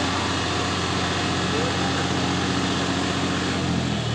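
John Deere tractor's diesel engine running steadily at low speed as the tractor drives slowly, its note shifting slightly near the end.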